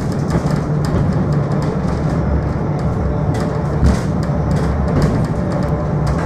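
Funicular railway car running on its rails, heard from inside the car: a steady low rumble with irregular clicks and knocks from the wheels.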